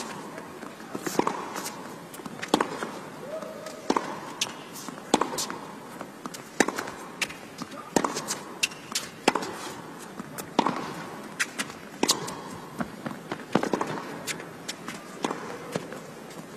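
Tennis rally: racquets strike the ball in turn, a sharp hit about every one and a half seconds, with quieter ball bounces and footfalls between the hits, in an indoor arena.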